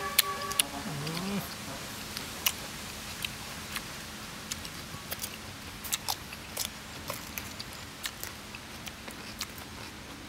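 Eating sounds: irregular sharp clicks and crunches of people chewing raw cucumber and picking cooked snails out of their shells. A short murmured voice is heard in the first second or so.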